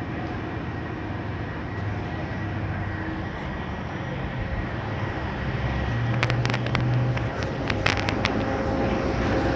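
Steady mechanical hum of running machinery, with a low rumble swelling about six seconds in and a quick run of sharp clicks between about six and eight seconds in.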